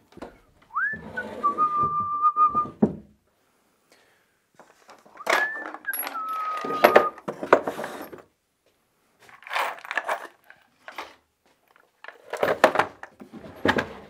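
A person whistling two short phrases, each a quick upward swoop followed by a steady held note. Around the whistling, plywood drawers slide out and in with rustling and knocks.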